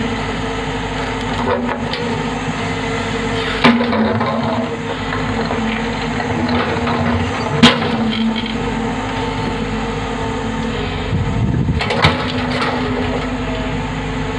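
Hyundai Robex 110-7 excavator's diesel engine running steadily while its bucket digs into broken rock, with three sharp knocks of steel on stone about four, eight and twelve seconds in, the one near eight seconds the loudest.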